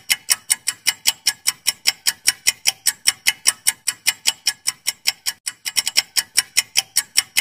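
Clock-ticking sound effect of a quiz countdown timer: rapid, even ticks, about six a second, with a brief run of doubled ticks about six seconds in.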